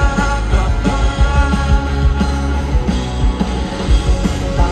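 Live rock band playing an instrumental passage: electric guitar chords ringing over bass and a steady drum beat.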